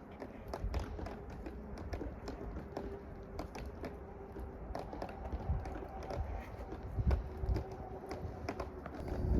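Irregular light knocks and taps, some heavier thuds among them, with a faint steady hum coming in about two and a half seconds in.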